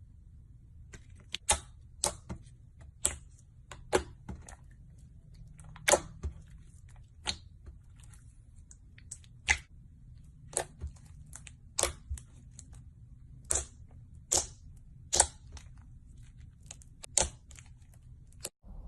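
Slime being squeezed and worked, giving sharp clicking pops at irregular intervals, about one a second.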